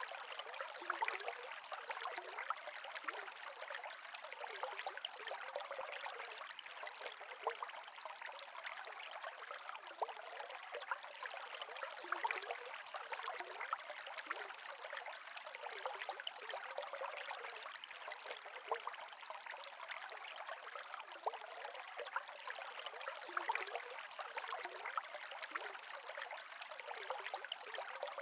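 Saltwater aquarium water trickling and bubbling steadily: a dense, even patter of small splashes with no low rumble.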